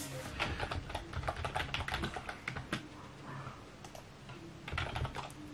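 Typing on a computer keyboard: a run of quick key clicks, with a second short cluster of keystrokes near the end.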